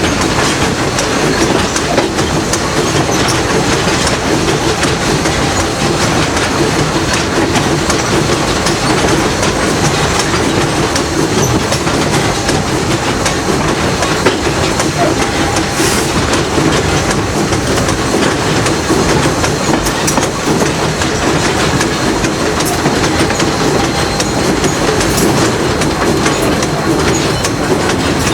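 Passenger coach rolling along the track, heard from aboard: a steady rumble of wheels on rail with occasional clacks over the rail joints.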